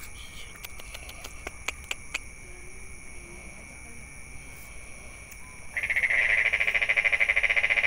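A loud, rapidly pulsing trill from a calling animal starts about six seconds in and lasts about two and a half seconds, over a steady high-pitched background drone. A few sharp clicks come earlier.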